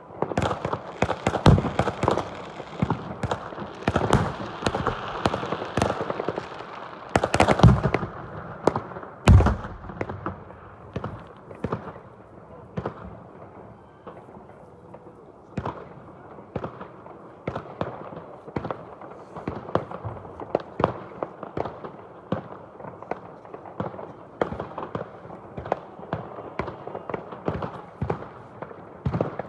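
Fireworks going off: many sharp bangs and crackles, dense with a few loud booms over the first ten seconds or so, then thinning to a steady scatter of pops and cracks.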